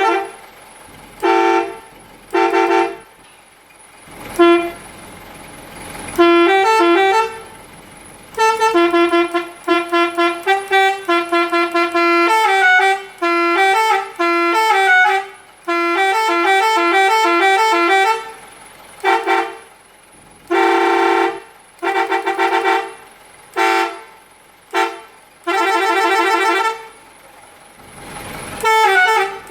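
Telolet horn on a fire-brigade bus: a multi-note bus horn playing melodic tunes. Short single blasts, quick runs of stepping notes and a few longer held chords, with brief pauses between.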